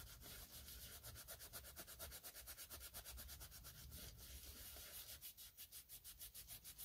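Green Scotch-Brite abrasive pad scrubbed rapidly back and forth over the rusty cast-iron slideways of a lathe bed, a faint, even, rasping scrub. The metal is still wet with rust-dissolving gel.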